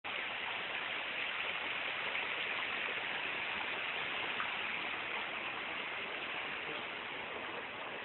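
Rocky forest stream rushing steadily over boulders: a continuous, even rush of running water.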